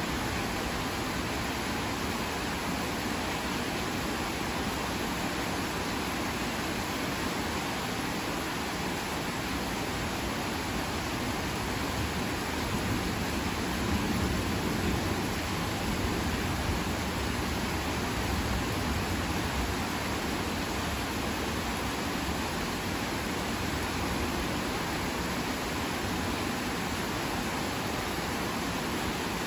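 Heavy rain pouring down in a steady, dense hiss, with a slight low swell about halfway through.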